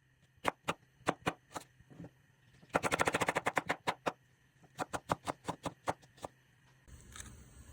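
Kitchen knife chopping cabbage on a cutting board: single cuts, then a quick run of strokes about three seconds in, then more single cuts. A soft steady noise starts near the end.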